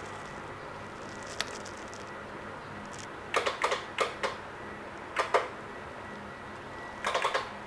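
Electric winch's solenoid clicking in short bursts of two to four sharp clicks as the remote is pressed, with no motor running: the winch has died.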